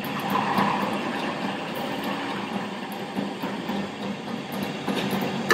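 Belt-driven metal drill press running steadily at 2020 RPM while a center drill is fed down by hand into the workpiece to cut a small starting divot.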